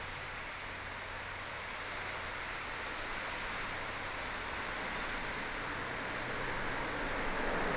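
Steady rushing noise of swollen floodwater swirling past a concrete bridge pier, growing louder near the end.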